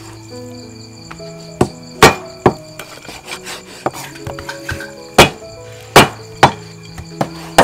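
Heavy cleaver chopping raw goose on a wooden chopping block: about seven sharp, loud chops at uneven intervals, grouped in two clusters.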